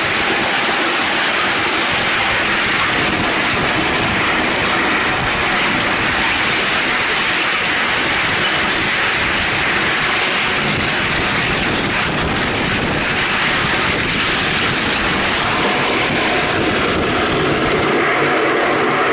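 5-inch gauge live steam Duchess class model locomotive running steadily along the track with its train, a continuous even rattle of wheels on the rails.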